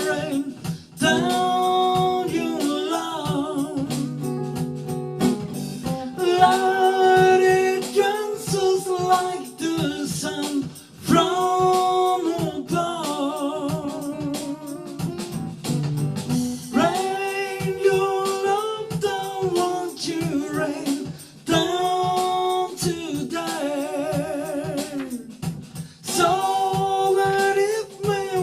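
A solo voice singing a soul melody without clear words, in phrases of a few seconds with vibrato, over guitar accompaniment.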